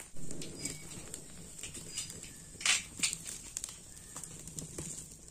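Wood fire crackling and popping in a clay hearth as a plucked chicken is singed in the flames, with one sharp pop a little under three seconds in.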